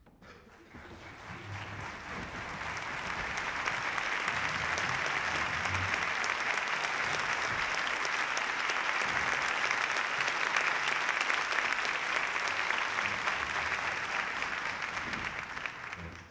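Audience applauding in a concert hall, swelling over the first few seconds, holding steady, then dying away near the end.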